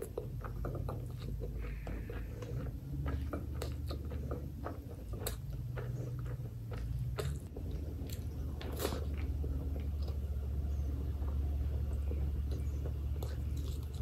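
Close-miked wet chewing and biting of a mouthful of rice and chicken liver curry eaten by hand, with many short lip smacks and clicks. A steady low hum runs underneath.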